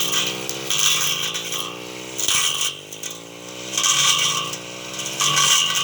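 Brush cutter engine running steadily while its blade slashes through grass and undergrowth, giving repeated irregular bursts of cutting noise about once a second.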